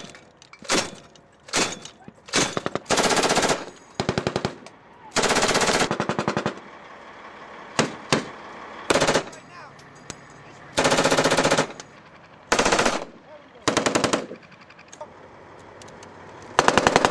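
Vehicle-mounted belt-fed machine guns firing about a dozen bursts of automatic fire, some short, a few lasting about a second, with brief pauses between them.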